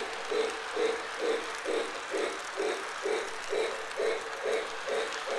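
Lionel O-gauge toy train set running on its track, with a steady rhythmic pulsing about twice a second as the cars roll past.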